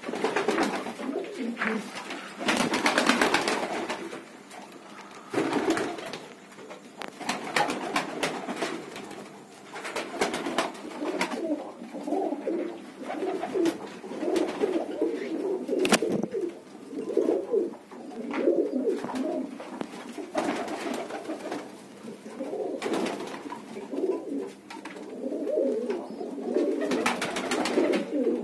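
Domestic pigeons cooing, a run of low warbling coos one after another with hardly a pause. A few short knocks and rustles come in between, the sharpest about sixteen seconds in.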